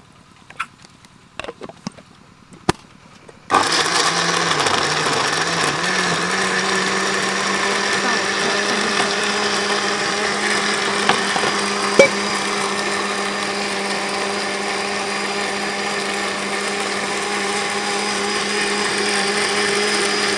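A few light clicks, then about three and a half seconds in an electric countertop blender starts and runs steadily, pureeing whole red grapes with a little water. Its motor pitch wavers for the first couple of seconds, then holds steady, with one sharp click near the middle.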